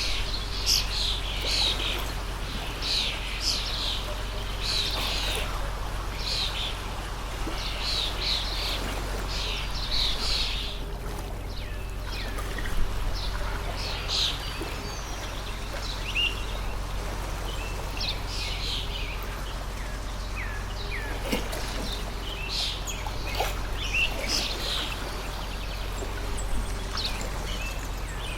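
Birds chirping in quick, repeated calls, densely for about the first ten seconds and more sparsely after, over the steady rush of a flowing stream.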